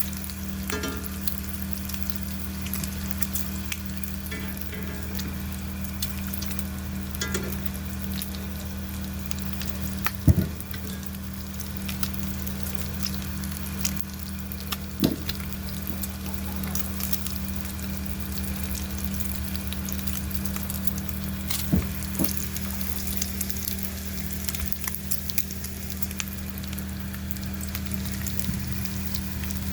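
A vehicle engine running steadily as a low hum, with a crackling hiss over it and a few sharp knocks.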